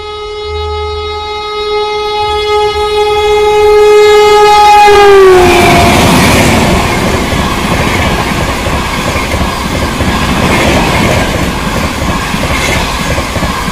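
The Garib Rath Express's locomotive horn sounds in one long blast as the train comes in at speed, dropping in pitch as the engine passes about five seconds in. It is followed by the rushing rumble of its LHB coaches going by at high speed.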